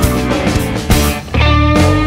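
Rock band playing an instrumental passage with guitar and drums. A long note is held from about one and a half seconds in.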